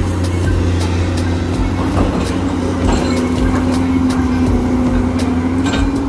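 Komatsu PC200 crawler excavator travelling on its steel tracks, its diesel engine running steadily. Scattered sharp clicks and clanks come from the track links over the engine.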